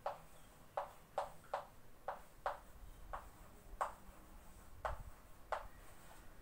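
Chalk writing on a blackboard: a string of short, sharp ticks and scratches, irregularly about two a second, as letters are written by hand. Faint.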